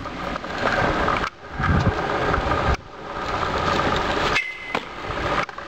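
Stunt scooter wheels rolling over rough asphalt, a loud steady rumble, in several short clips cut together, with a brief high squeal near the end.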